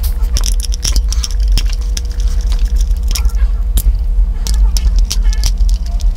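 Small screwdriver working tiny screws out of a plastic trail-camera housing: light metal clicks and scrapes, over a steady low hum.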